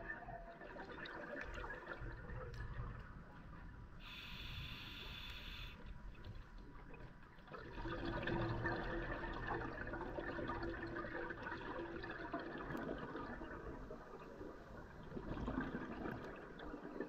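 Scuba diver's regulator breathing underwater: a brief hiss of inhaled air about four seconds in, then a long rush of exhaled bubbles, with another burst of bubbles near the end.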